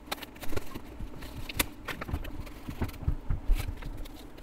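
Paper seed packet being handled and opened by hand: irregular crinkles and small clicks, with a few soft low thumps, over a faint steady hum.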